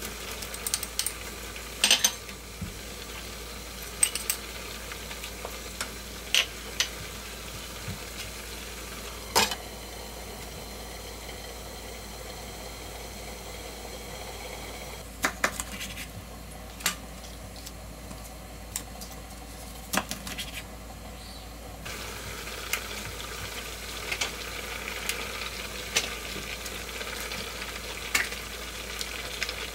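A pan of pork-belly soft tofu stew (sundubu jjigae) simmering and sizzling, with about a dozen sharp clinks and knocks of cookware against the pan. From about two-thirds of the way in, the bubbling crackle gets louder.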